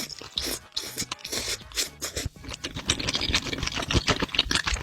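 Close-miked eating sounds: rapid, irregular wet clicks and smacks of a mouth chewing octopus, getting denser about two seconds in.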